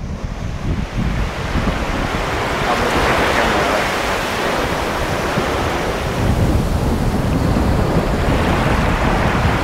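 Wind buffeting the microphone over the steady wash of sea surf. The surf hiss swells about three seconds in and again near the end.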